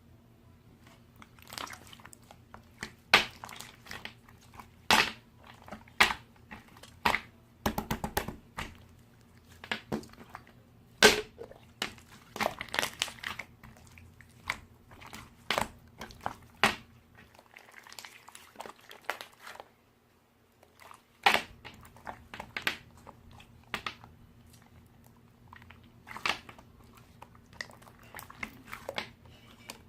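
Clear slime packed with crunchy pearl beads being squeezed and pressed by hand, giving irregular crunchy crackles, clicks and pops in clusters. A faint steady low hum runs beneath.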